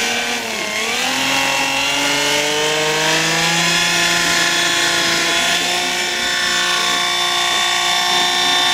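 Replica Heli Baby RC model helicopter running up on the ground, rotors spinning: after a brief dip its motor's pitch rises steadily for about five seconds, then holds steady.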